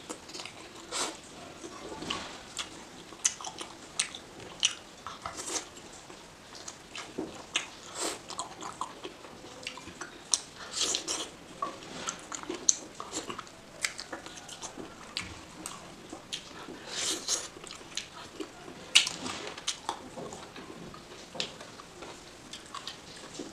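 Close-up sounds of a person eating oily chicken curry with her hands: bites and chewing, with wet, sticky mouth and finger noises coming as irregular clicks and crackles.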